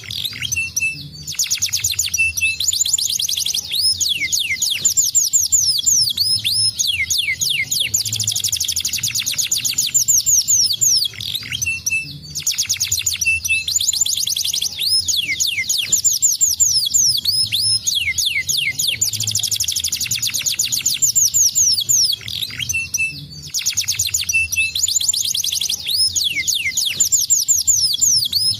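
Domestic canary singing a long, fast song of rapid trills and quick downward-sweeping notes, broken by a few short pauses.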